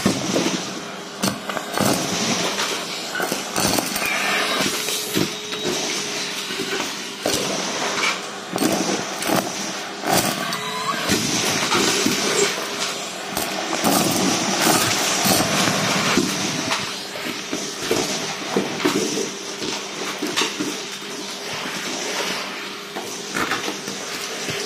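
Vacuum cleaner with a metal hose sucking up craft scraps, buttons and sequins from a rug: a steady motor hum under a constant crunching and rattling of small hard pieces clicking through the metal tube.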